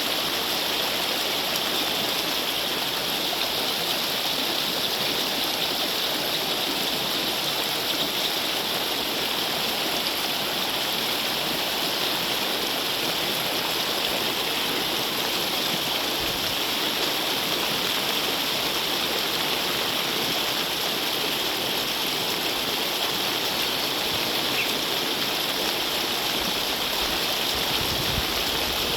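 Steady, even rush of water, unchanging throughout.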